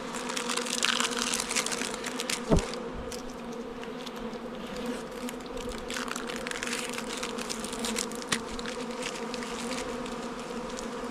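Many honeybees buzzing around open hives, a steady hum with a low and a higher tone, with a brief louder sound about two and a half seconds in and scattered light rustles.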